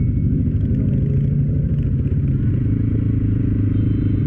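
CFMOTO quad's engine running under way across a dirt lot, its pitch easing down a little about halfway through as the throttle comes off.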